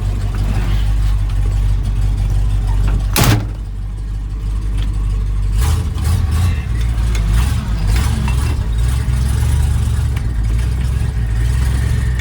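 A 1978 Ford F-350's 460 V8 idling in neutral, with one sharp bang about three seconds in. The low rumble gets fuller about five and a half seconds in.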